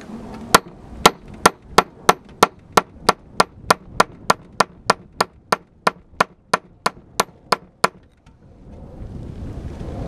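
A 1 kg club hammer striking a steel chisel into rock in a steady run of about two dozen sharp, ringing blows, about three a second, stopping about 8 seconds in. Wind noise rises near the end.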